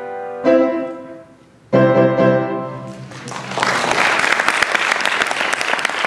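Upright piano playing the closing chords of a piece, the last one struck about two seconds in and left to ring out. Audience applause starts about three seconds in and carries on.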